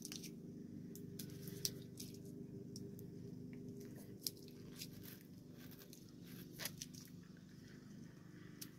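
Faint eating sounds of a frozen freezer pop being bitten and sucked from its plastic sleeve: scattered small crunches and clicks over a steady low hum.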